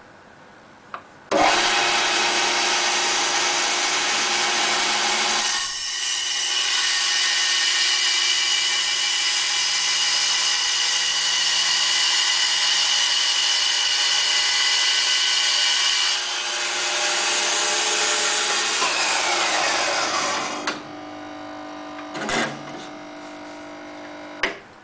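Workshop bandsaw switched on about a second in and running steadily with a high whine. Near the end it is switched off and its pitch falls as it spins down, leaving a quieter hum and a few knocks.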